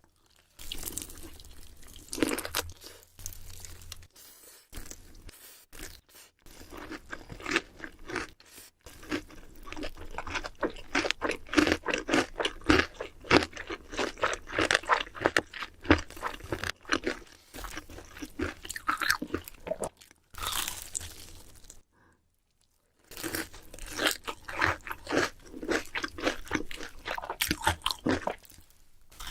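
Close-miked eating of crispy fried chicken: loud, rapid crunching bites and chewing, with a short silent break about two-thirds of the way through.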